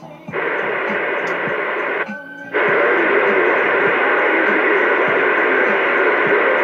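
CB radio speaker on channel 6 (27.025 MHz) putting out a loud, steady, noisy received signal. It drops to a much quieter hiss briefly at the start and again about two seconds in, then comes straight back.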